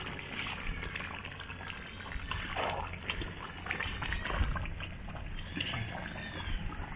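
Thick rendang in a large wok bubbling and sizzling as it cooks down, with faint small ticks and scrapes.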